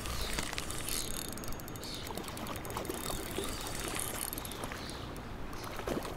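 Spinning reel being cranked steadily to retrieve a topwater lure, its handle and gears giving light clicking and whirring over a steady rumble of wind on the microphone.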